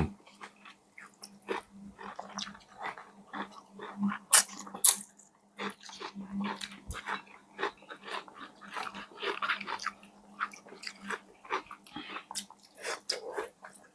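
Close-miked eating of KFC food: irregular crunching bites, chewing and wet mouth smacks.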